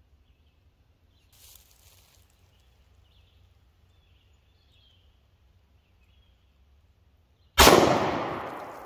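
A single shot from a Smith & Wesson M&P 2.0 full-size 9mm pistol, sudden and loud, near the end, its report dying away slowly through the woods for over a second.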